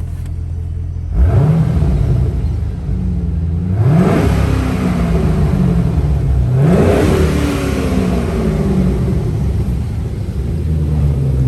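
Holden Commodore SS V8 with an aftermarket X-Force exhaust idling, then revved three times, about a second, four seconds and seven seconds in. Each rev rises quickly and falls back to idle.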